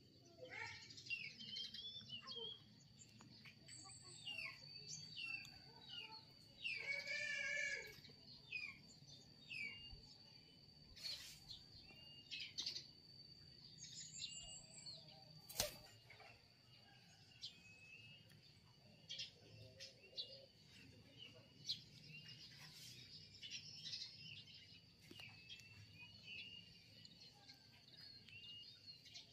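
Quiet ambience of small birds chirping over and over above a steady high-pitched whine. About seven seconds in comes one drawn-out kitten meow, and a single sharp click falls a little past halfway.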